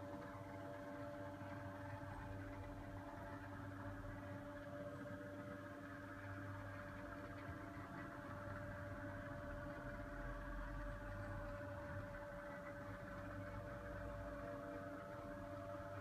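Electric motor of a Future Automation TV lift running steadily as it raises a flat-screen TV out of an end-of-bed cabinet: a low, even motor hum.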